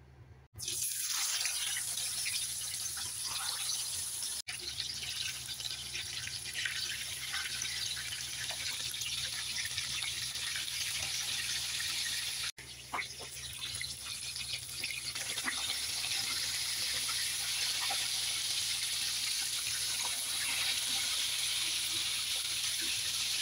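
Whole fish deep-frying in a pan of hot oil: a steady, dense sizzle with crackling pops, starting about half a second in and broken off briefly twice.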